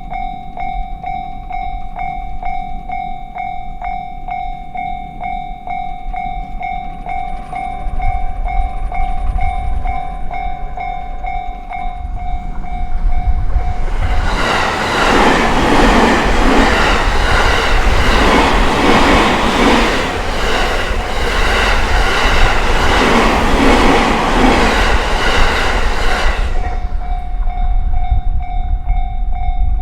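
Japanese level-crossing warning bell ringing in a steady repeating tone while a rumble builds from the approaching JR Sobu Main Line train. About halfway through, the train passes for about twelve seconds with loud, rhythmic wheel-and-rail noise that drowns out the bell. The bell is heard again near the end.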